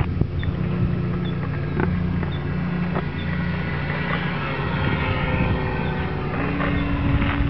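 A remote-control model airplane running overhead under a steady low rumble of wind on the microphone, with a few short knocks; a steady higher tone joins about six seconds in.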